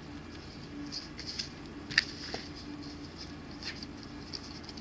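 Soft clicks and rustles of trading cards being handled and laid down, with one sharper click about two seconds in, over a faint steady low hum.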